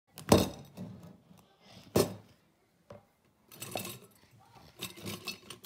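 Small metal toy cars clinking and rattling against a glass jar as they are handled, with two sharp knocks, one just after the start and one about two seconds in, then scattered clinks.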